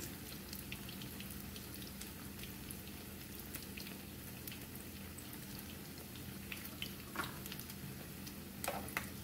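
Oil sizzling and crackling steadily around corn-tortilla tacos frying in a skillet, with a couple of light clicks near the end.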